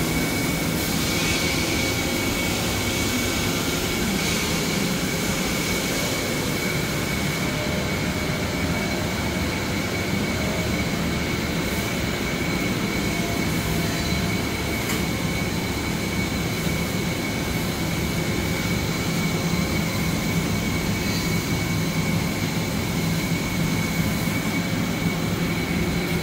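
1995 Dainichi F50 CNC lathe standing powered on: a steady machinery hum with a faint constant high whine.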